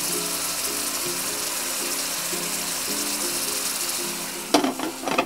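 Steady sizzle of prawns simmering in an electric pan, under background music with a plucked melody. Near the end there are two short clanks as the glass lid is set on the pan, and the sizzle then turns muffled.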